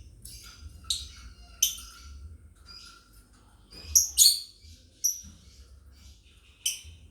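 A flock of lovebirds chattering steadily, with about six sharp, loud chirps standing out, two of them close together around four seconds in. A steady low hum runs underneath.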